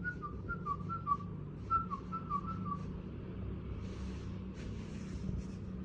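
Whistling: a quick run of short, high notes, each dipping slightly in pitch, repeated for about three seconds. Two brief breathy hisses follow, over a steady low hum.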